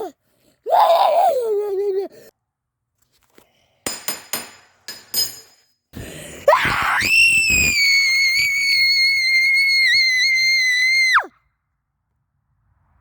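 A person's voice: two short gliding cries, a few sharp clicks, then one very high-pitched scream held for about five seconds that rises at the start and drops off abruptly.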